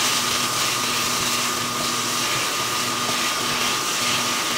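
Chayote sticks stir-frying in a wok over high heat with a red silicone spatula: a steady hiss with a constant high whine under it.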